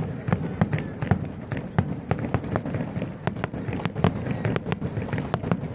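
Fireworks bursting in a rapid barrage: many sharp bangs and crackles a second, irregularly spaced, over a continuous low rumble.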